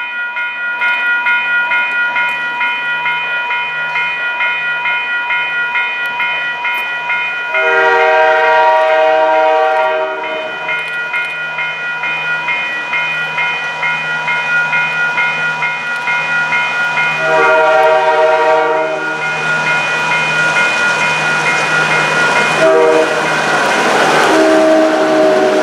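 Level-crossing warning bell ringing steadily while an approaching CN freight locomotive sounds its multi-note air horn in the crossing pattern: two long blasts, a short one, then a long one that runs on at the end. The train's rumble and wheel noise build as it reaches the crossing in the last few seconds.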